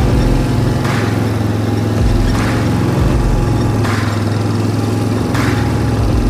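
Small engine running at a steady speed, most likely the machine carrying the grass-seed hopper. A short soft hiss repeats about every second and a half over the engine.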